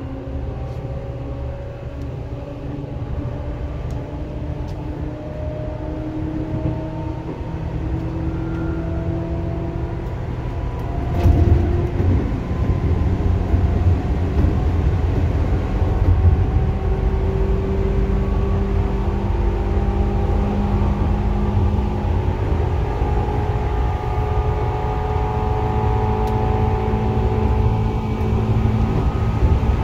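Seibu 2000 series electric train running, heard from inside a motor car above the line breaker: the DC traction motors whine in several tones that rise slowly as the train gathers speed and then level off, over a steady low rumble of the wheels on the rails. About eleven seconds in, the rumble grows louder and stays so.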